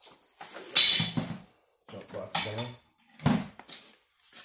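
Metal clanks and clinks of hands and tools working at a car's rear brake caliper: a sharp clank about a second in and a heavier clunk about three seconds in.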